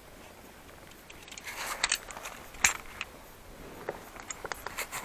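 Scattered sharp clicks and short scraping knocks of handling, the loudest just under 2 seconds in and again near 3 seconds, with a run of lighter clicks near the end.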